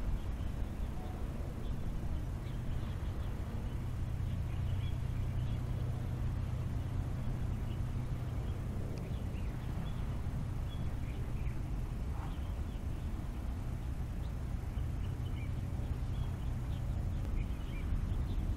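Outdoor hillside ambience: a steady low rumble with faint, short bird chirps scattered throughout.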